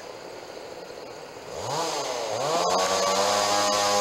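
Two-stroke chainsaw revving up about a second and a half in, dropping back briefly, then revving again and held at steady high revs.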